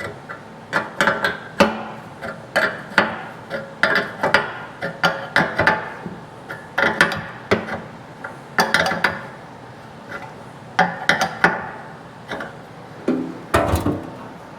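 Steel wrench clinking against a nut and washer as a threaded rod is tightened down: irregular sharp metal clinks with a brief ring, about one or two a second, with short pauses between groups.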